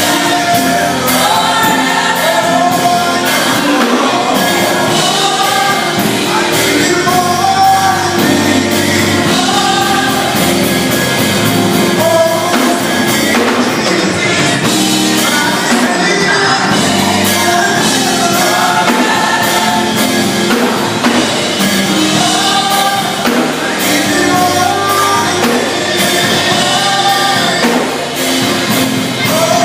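A live gospel band and vocal group performing a worship song: several voices singing over a full band, with a steady beat.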